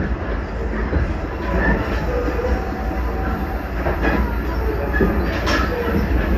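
Limited Express Shinano 383-series electric train running, heard from on board: a steady rumble with short faint squeals and a couple of sharp clicks from the wheels on the rails.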